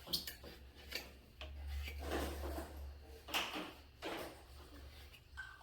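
Rubbing and scraping as a fluorosilicone patch is stretched and pressed down onto a plastic pipe, in several uneven swells with a few sharp knocks, the longest swell from about one and a half to three seconds in. A steady low hum runs underneath.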